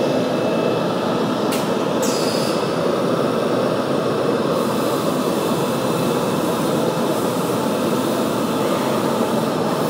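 Automatic-loading CNC panel drilling and machining centre running, a loud steady mechanical noise. A sharp click and a brief high hiss come about two seconds in.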